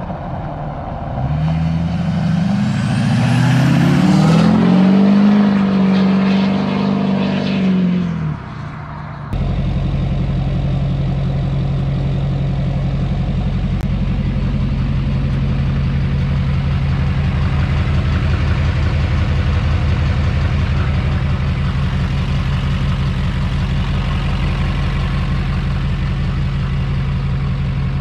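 Straight-piped 2006 LBZ Duramax diesel revving up, holding and dropping back over several seconds, with a high whistle climbing as it spools up. After a sudden cut about nine seconds in, it idles steadily.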